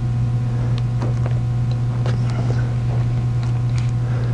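Steady low hum throughout, with faint small ticks and scratches of a utility-knife blade picking a torn scrap of release paper off the foam board.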